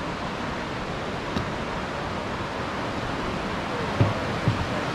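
Steady rush of flowing water, an even hiss-like roar, with a couple of soft low thumps near the end.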